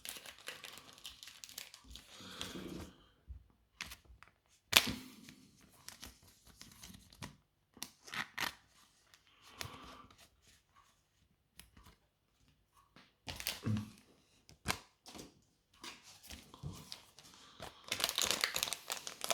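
Foil wrapper of a Pokémon booster pack being torn open and crinkled, in irregular rustling stretches with a few sharp snaps, the loudest about five seconds in.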